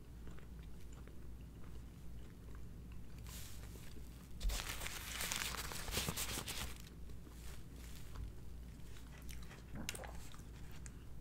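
Close-up chewing of a croissant sandwich filled with chicken salad. From about three and a half to seven seconds in there is a louder stretch of crinkling and rustling as a paper napkin is handled. A room air conditioner hums steadily underneath.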